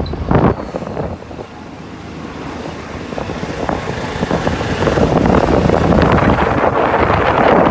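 Wind rushing over the microphone of a moving vehicle, mixed with road noise. It drops away about a second in, then grows steadily louder again.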